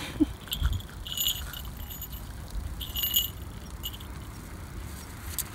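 Small metal fittings on a toy poodle's harness and leash jingling twice, briefly, about a second in and about three seconds in, as the dog sniffs along the street. A steady low outdoor rumble runs underneath.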